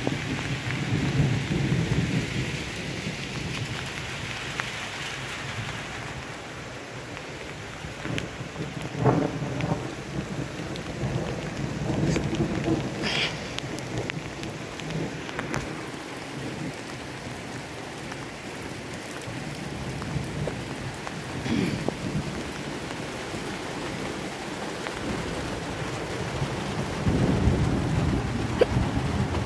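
Steady rain falling, with deep rumbles that swell and fade a few times.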